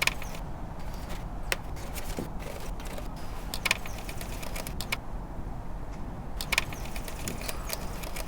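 Scattered, irregular clicks and knocks of hands and tools working on the engine's air intake as the intake bellows is refitted onto the throttle body.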